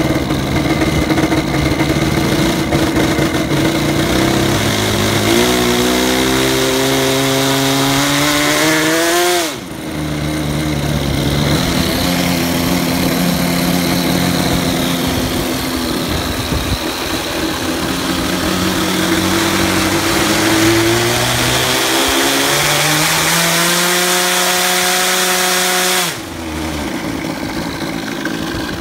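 Super Tigre G90 two-stroke glow engine with a Hatori tuned pipe, turning an 11x13 propeller on an RC aerobatic model held on the ground. Its revs climb to a high, rising pitch and drop suddenly back down about a third of the way in. They climb again and drop once more near the end.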